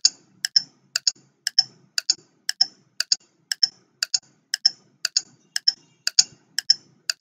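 Clock tick-tock sound effect counting down a quiz timer: a sharp double click about every half second, steady and evenly spaced.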